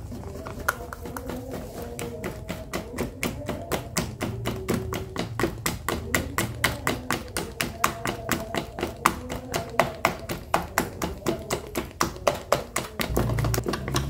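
Wire whisk beating thick mochi batter in a plastic tub, a fast, even clatter of taps about four to five a second. The batter is being whisked to work in the food colouring.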